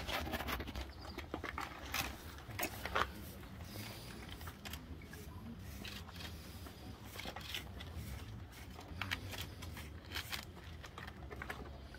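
Small hand brush scratching sand off brass plaques set in the pavement into a metal dustpan, in short irregular strokes.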